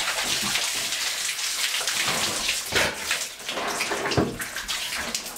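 Water pouring from a large plastic jug as it is tipped up to a person's mouth, overflowing and splashing steadily onto the shower floor.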